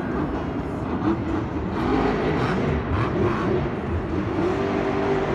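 Monster truck's supercharged V8 engine revving hard, its pitch rising and falling as the driver works the throttle over the jumps.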